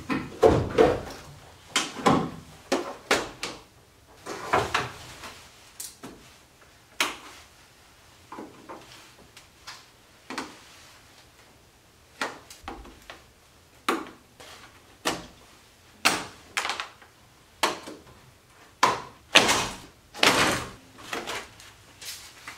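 Irregular sharp plastic clicks, pops and knocks, roughly one or two a second: a screwdriver prying out the push-pin clips along the top of a Jeep Wrangler JK grill, and the grill's clips snapping loose as the plastic grill is worked free. The loudest knocks come near the start and again about three quarters of the way through.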